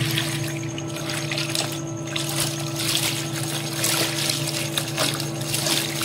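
A top-loading washing machine agitating, water sloshing and churning in the drum. Under it runs a steady humming noise from the house's water tank, which several float valve replacements have not cured; the last builder called it normal.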